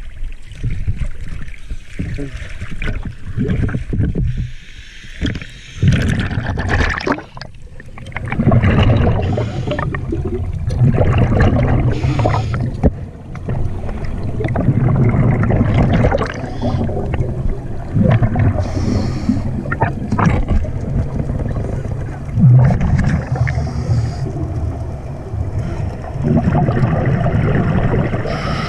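Water sloshing and bubbling around a scuba diver's camera, irregular for the first few seconds, then dense and continuous with repeated surges.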